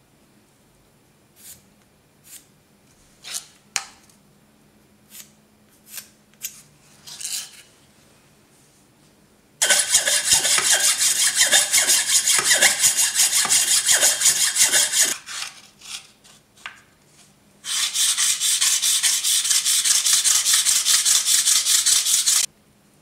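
A thin piece of Japanese natural whetstone (Okudo suita) rubbed rapidly back and forth by hand on an Atoma diamond plate, a loud gritty scraping in two stretches of about five seconds each, flattening it into a finger stone. Before that, a few light taps and short scrapes.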